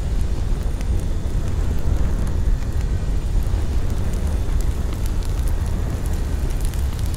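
Steady low rumble of wind buffeting the microphone, with a few faint scattered clicks.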